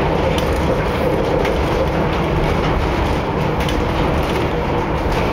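Funicular car running down its rail track, heard from inside the car: a steady rumble of wheels on the rails with a few faint clicks.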